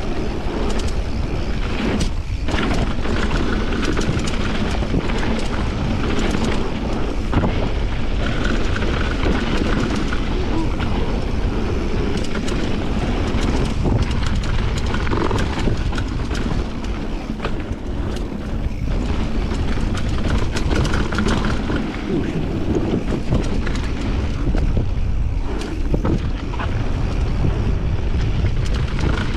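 Wind rushing over the microphone of a mountain bike ride downhill on a bike-park trail. Tyres run on dirt and the bike rattles, with many scattered clicks and knocks over the bumps.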